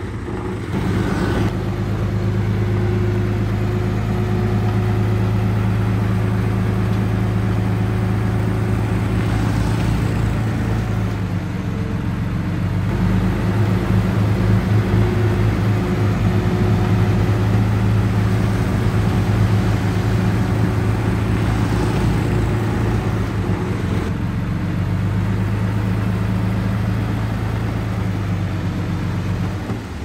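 Dump truck's diesel engine running steadily with a deep rumble, its speed picking up for a while around the middle as the loaded truck manoeuvres and sets up to tip.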